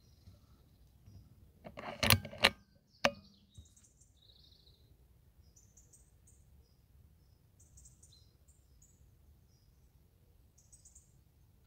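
A quick run of sharp clicks and knocks about two seconds in, with one more a second later. Faint, high bird chirps come and go throughout.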